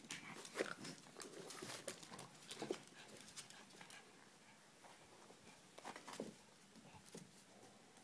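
Two Boston Terriers playing: short dog sounds and scuffles come in a few quick bursts, about a second in, near three seconds and around six seconds in, with quiet stretches between.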